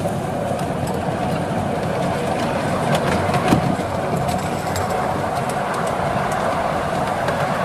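7¼-inch gauge miniature train running, heard from a passenger car: a steady rumble of wheels on rail with a hum from the Class 47 replica locomotive. A few clicks and a knock come about three to five seconds in.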